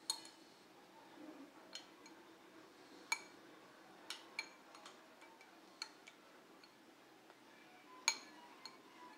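Metal spoon clinking and scraping against a ceramic bowl: about seven sharp, ringing clinks at irregular intervals, the loudest a little after three seconds in and again about eight seconds in.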